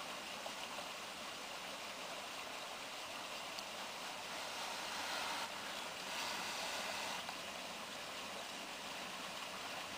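Faint, steady hiss with no distinct events, growing a little louder twice around the middle.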